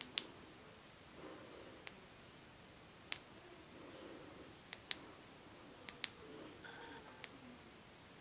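Small, sharp clicks, about one every second, several of them in quick pairs: the Skilhunt H03 flashlight's button being pressed, clicking through its light modes.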